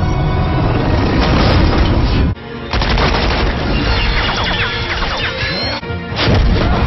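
Action-scene soundtrack: dramatic background music mixed with booms, gunfire and impact sound effects, with an abrupt edit cut a little over two seconds in and several sharp hits.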